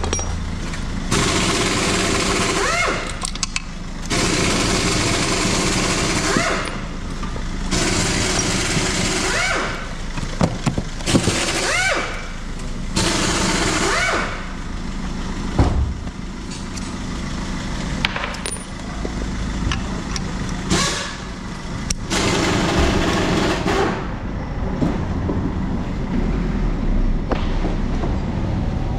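Pneumatic air tool in a repair shop running in repeated bursts of one to two seconds, each starting and stopping abruptly, some with a pitch that rises as the tool spins up.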